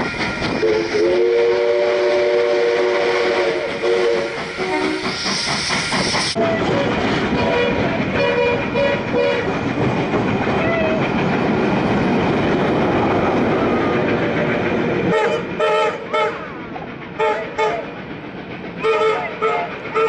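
Steam locomotive sounding its chime whistle as it approaches, a steady chord of several tones held for about four seconds. Then the loud rumble and clickety-clack of the locomotive and its carriages passing close by. Near the end come short, repeated ringing tones.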